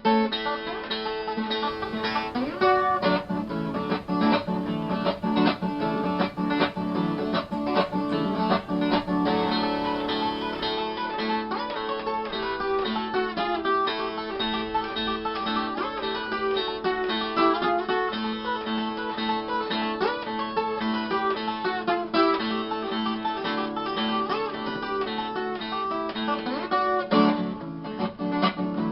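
Moda de viola music: a viola caipira (Brazilian ten-string guitar) playing a dense run of plucked notes throughout.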